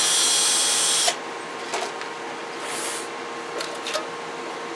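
A small power tool whirs in one loud burst of about a second, then stops. After it come a brief high hiss and a few light clicks as a CB radio chassis is handled on the bench.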